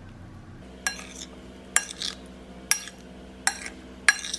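Metal spoon stirring fruit salad in a glazed ceramic bowl, clinking sharply against the bowl's side five times, about once a second.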